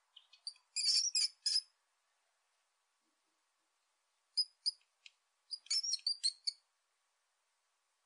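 Marmots squealing while they play-wrestle: short, high-pitched chirps and squeaks in two quick clusters about four seconds apart.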